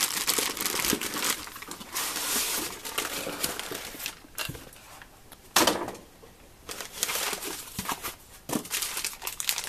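Plastic bags and packaging crinkling and rustling as a car stereo is unpacked by hand from its cardboard box, in irregular bursts with a quieter lull about halfway through.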